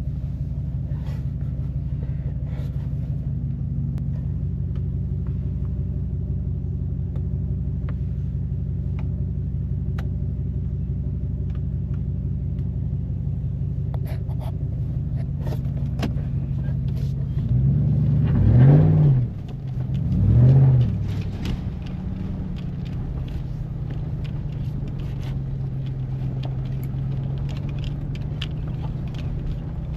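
Ram pickup truck engine running with a low, steady drone, heard from inside the cab while driving slowly on a gravel road. A little past halfway the engine note rises and falls twice in quick succession, briefly louder.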